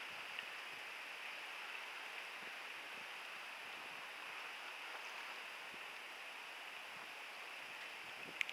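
Steady soft hiss of water moving around a kayak on open water, with a sharp click or two near the end.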